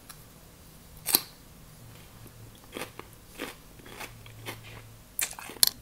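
Close-up eating sounds: a crisp bite into a fresh cucumber slice about a second in, then chewing of cucumber and glass noodles with a run of small wet clicks, and a few sharper clicks near the end.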